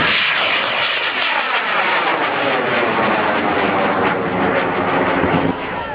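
Large amateur rocket's motor firing at liftoff: a loud, steady rushing noise whose tone sweeps and shifts as the rocket climbs away, easing off slightly near the end.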